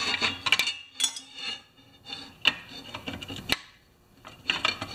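Metal parts clinking and scraping as an old steel chainsaw guide bar and a red metal bracket are handled and fitted together on a metal workbench: a series of sharp clinks, with a short lull before the last few.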